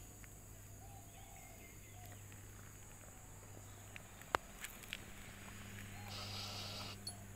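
A cat pawing at a smartphone lying on concrete: a few sharp taps and clicks, the loudest about four seconds in and a couple more just after, over a faint steady hum.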